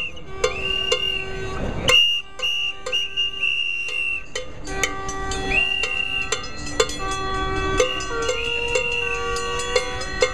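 Rally noisemakers blown over and over: held high tones lasting about a second or two each, several overlapping and some sliding up as they start, with many sharp clicks and knocks between them.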